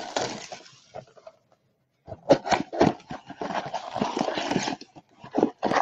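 Trading-card boxes and packs being handled on a table: rustling that dies away, a short pause, then a quick run of sharp taps and clicks with rustling between them.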